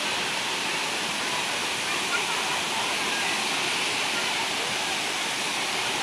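Steady rush of a waterfall: water pouring down a limestone cascade into the pool below.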